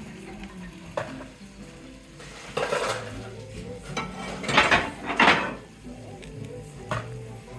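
Carving knife and utensils scraping and clattering against a dish as the smoked bird is cut. There are two sharp knocks and a longer rasping scrape near the middle, over background music.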